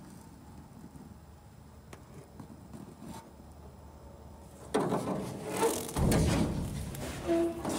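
Quiet low hum, then, about two-thirds of the way in, loud rustling, scraping and knocking from the camera being moved against the aluminium skin and ribs inside a Cessna wing, with a short squeak near the end.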